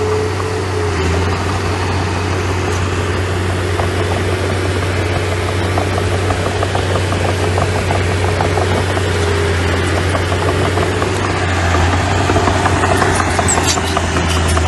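Engine of a small earthmoving machine running steadily with a strong low hum and light metallic clinks, getting a little louder near the end.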